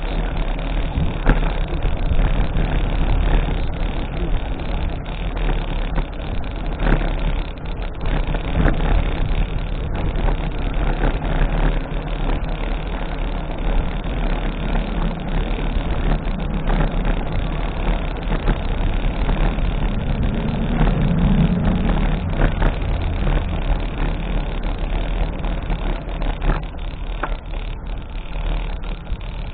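Steady rumbling road noise during a bicycle ride through city traffic, with scattered short clicks and rattles.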